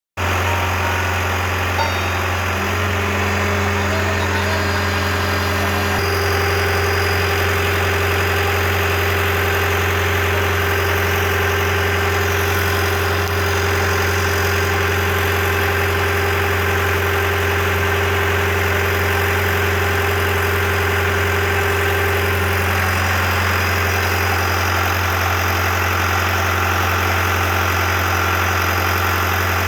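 Drilling rig machinery running steadily: a continuous low engine drone, with higher hums above it that change a little partway through.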